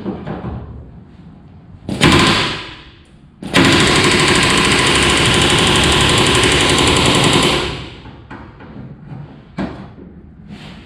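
Pneumatic rivet gun hammering a rivet into the aluminum sheet of a boat hull, with a tungsten bucking bar forming the shop head on the back side. A short burst about two seconds in, then a steady, very rapid hammering for about four seconds that stops sharply.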